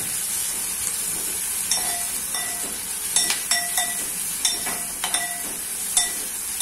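Sliced onions sizzling as they sauté in hot coconut oil, being stirred with a spatula that knocks against the pot again and again at uneven intervals. The onions are at the stage of being softened towards brown.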